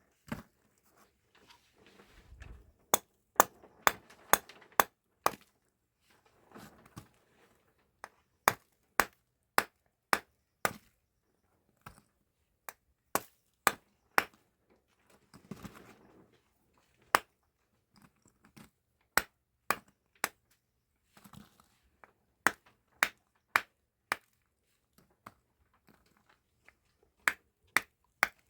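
A long run of sharp, irregular cracks or snaps, about one or two a second, with a few patches of soft rustling between them.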